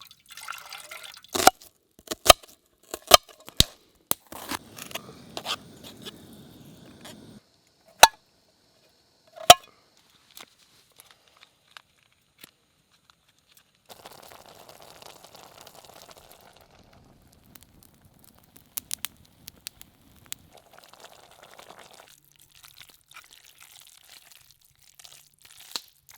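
Crinkling and tearing of a plastic food packet, with a series of sharp clicks and knocks, most of them in the first ten seconds.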